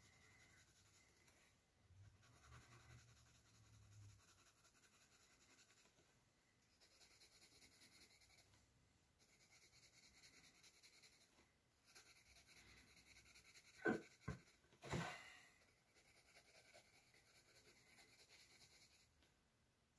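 Colored pencil scratching faintly on sketchbook paper in stretches of back-and-forth shading strokes. Two brief louder sounds break in about fourteen and fifteen seconds in.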